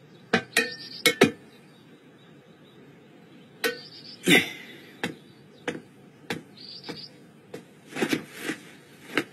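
Footsteps on a hard rooftop: a few uneven knocks at first, then steady walking at roughly a step every half second or so. Small birds chirp faintly a few times.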